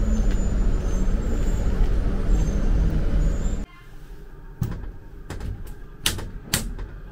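Steady loud rumble and hiss of a passenger train going through the depot's washing plant. It cuts off abruptly about halfway through, leaving a quieter room where several sharp clicks and knocks sound.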